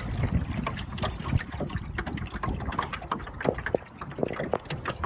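Water lapping and splashing irregularly against the hull of a small sailboat, with wind rumbling on the microphone.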